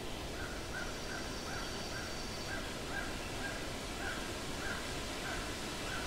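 Steady rushing of a forest stream, with a bird repeating a short call about twice a second, around a dozen times. A faint high thin note sounds briefly about a second in.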